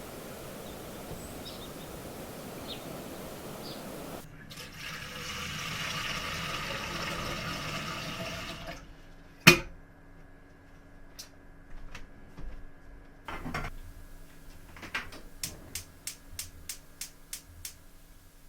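Water running for about four seconds, cut off, then a single sharp knock. After that comes a faint steady hum with scattered clicks and a run of quick ticks near the end.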